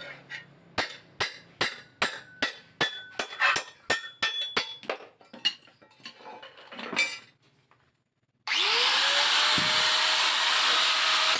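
Blacksmith's hand hammer striking steel, about a dozen ringing blows at roughly two and a half a second, tapering into a few lighter taps. After a brief silence, a loud rushing noise with a rising tone cuts in near the end.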